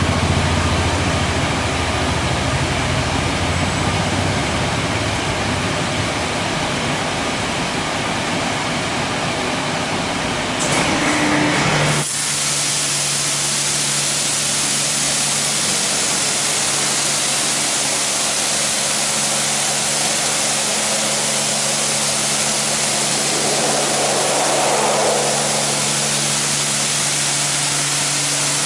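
WashTec SoftWash automatic gantry car wash running: a low machinery rumble, then about twelve seconds in its water jets switch on abruptly and spray the car with a steady hiss over an even hum.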